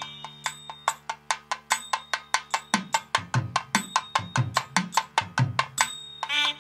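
Percussion music: quick, even strikes about five a second over a steady drone, with deeper drum strokes joining about three seconds in.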